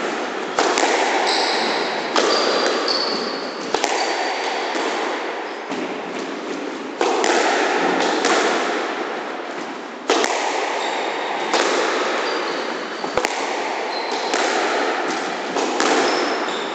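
Squash ball struck by rackets and smacking off the court walls during a rally: sharp hits every second or two, each ringing on in the echo of the enclosed court. Short high squeaks of shoes on the wooden floor come between the hits.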